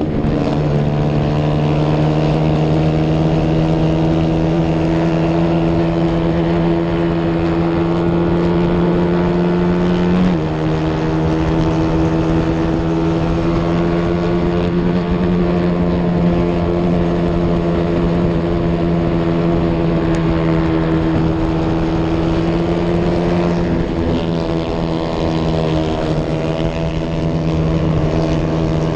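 Racing motorcycle engine running hard at high revs, heard from an onboard camera with wind rush over it. The steady high note drops in pitch once, suddenly, about ten seconds in, then climbs slowly again, and sags briefly about three-quarters of the way through.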